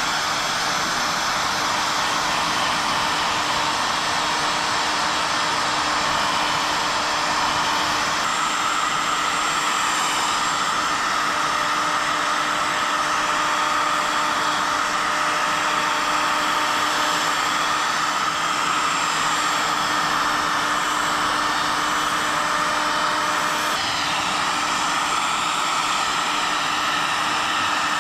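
Heat gun running steadily, its fan blowing hot air while it is swept over a sanded plastic fuel tank to lift the white haze. The tone shifts slightly about eight seconds in and again near the end.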